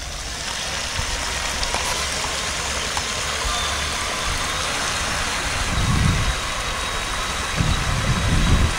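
Water churned and splashed by an electric 4WD RC monster truck's spinning tires as it paddles across a lake towing a raft: a steady splashing hiss with a faint thin whine. Two low rumbles come about six seconds in and near the end.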